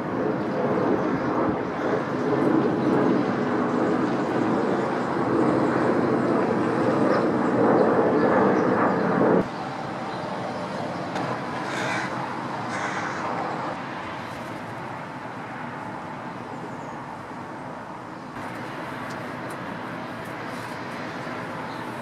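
Outdoor city ambience: a steady rumble of distant vehicles. It drops suddenly about nine seconds in and carries on quieter.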